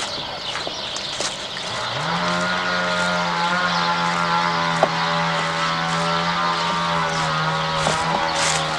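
A motor comes up to speed about two seconds in and then drones steadily at one pitch.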